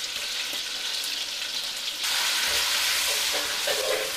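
Freshly pounded chilli paste sizzling as it is sautéed in hot oil in a wok. The sizzle gets louder about halfway through, and a metal spatula scrapes the wok as the paste is stirred near the end.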